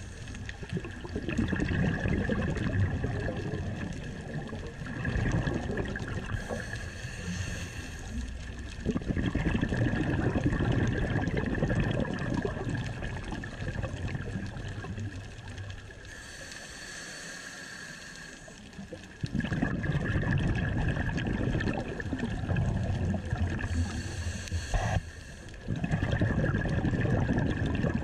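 Scuba diver breathing through a regulator underwater: slow breaths, each a short hiss on the inhale followed by several seconds of bubbling, gurgling exhaust bubbles.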